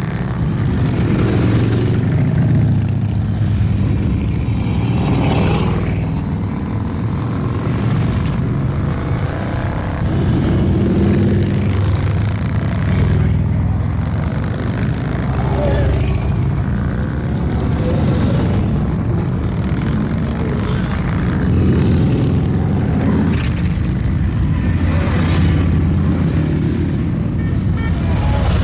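A steady stream of motorcycles, mostly Harley-Davidson V-twins, riding past at cruising speed, their engines swelling and fading as groups of bikes go by.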